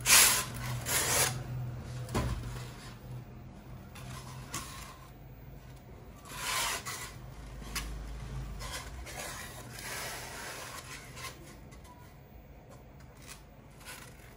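Cut polystyrene foam pieces rubbing and scraping against each other as they are lifted apart by hand: a few short rasping scrapes, the loudest at the start, more around the middle.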